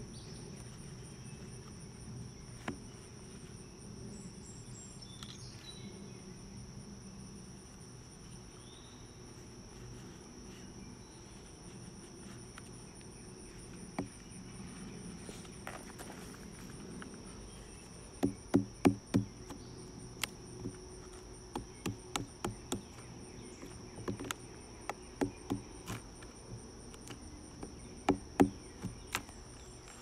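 Steady high chirring of insects, with sharp knocks of a metal tool on a wooden utility pole arriving in quick clusters of three or four from a little past halfway on, as it is worked in to pry out the staples holding the copper wire.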